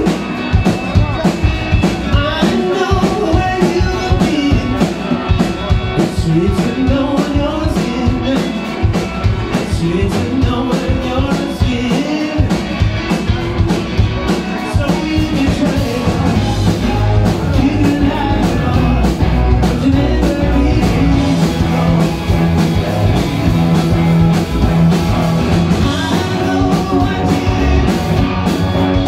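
Loud live rock band playing: electric guitars, bass guitar and a drum kit keeping a steady beat.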